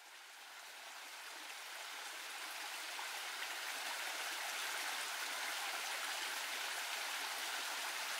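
Small mountain-stream cascade pouring over rock into a pool: steady rushing, splashing water that fades up over the first few seconds and then holds level.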